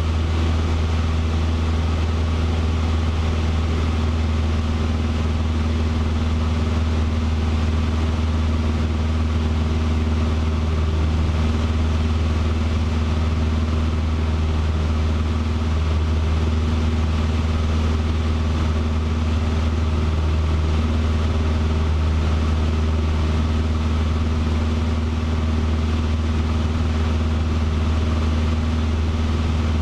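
Cessna 150's four-cylinder Continental O-200 engine and propeller droning steadily in cruise flight, heard inside the cockpit.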